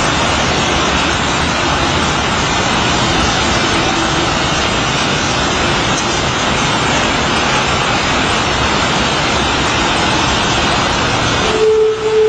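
A loud, steady rumbling noise with no clear pitch, of the kind shared as the mysterious 'trumpet' sound in the sky. Near the end it breaks off and a steady humming tone takes over.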